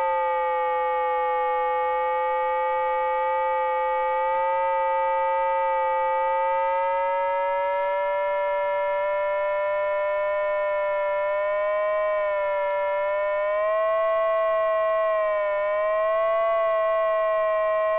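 Continuous electronic tone from a model aircraft's telemetry altimeter, its pitch following the altitude. It holds steady at first, then rises slightly with small wobbles in the second half.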